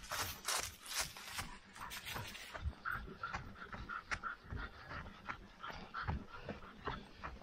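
Footsteps going at a steady rhythm, two to three a second, with heavy panting breaths.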